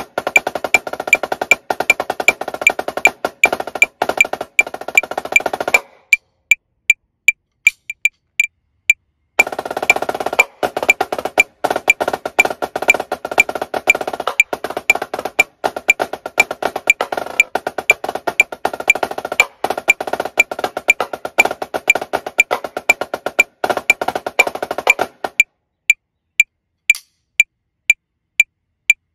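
Dynasty marching snare drum played in fast, dense rudimental patterns over a steadily clicking metronome. The drumming stops about six seconds in, leaving the metronome alone for about three seconds, then starts again for about sixteen seconds and stops, with the metronome clicking on alone. The metronome runs at about 156 beats a minute at first, then at 120.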